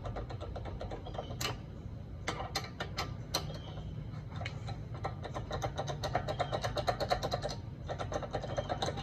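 A ratchet wrench clicking in quick runs on a lug nut, with sharp metal clicks of the socket, over a steady low hum.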